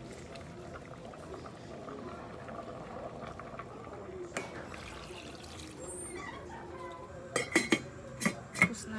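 A pot of soup bubbling at a simmer as leafy greens are tipped in. Near the end, a stainless steel lid is set onto the pot with several sharp metal clanks.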